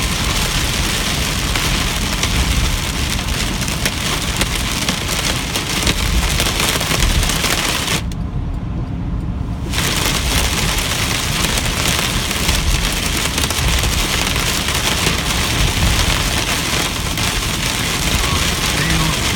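Heavy rain drumming on a moving car, a dense steady hiss over a low rumble from the road and engine. Near the middle the rain noise cuts out abruptly for about a second and a half while the low rumble carries on, then returns.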